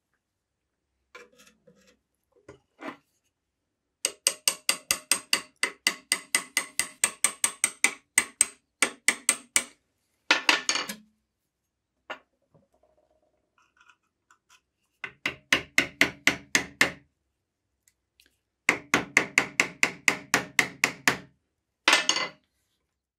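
Hammer tapping a punch in quick runs of sharp metallic blows, about five a second, to drive apart the seized, rust-bound pivot of an old steel can opener. There are three long runs, broken by short pauses and a few single knocks.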